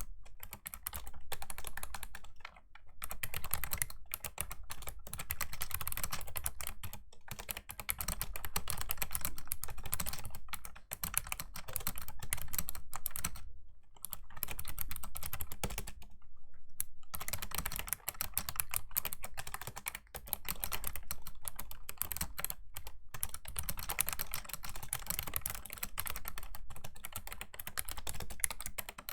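Fast typing on a Razer Ornata Chroma V2 mecha-membrane keyboard, its keys clicking in rapid runs broken by brief pauses.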